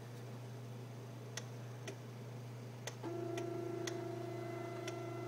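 Home-built 3D printer's stepper motors driving an auto-homing move: a steady whine starts about three seconds in, over a low steady hum. Sharp ticks come about once a second.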